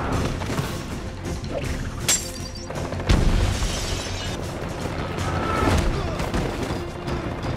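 Action film soundtrack: music under fight sound effects, with a sharp hit about two seconds in and a heavy explosion boom about three seconds in.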